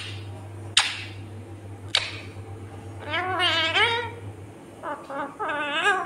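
Indian ringneck parrot vocalising: two sharp short sounds about one and two seconds in, then wavering, warbling calls in the second half.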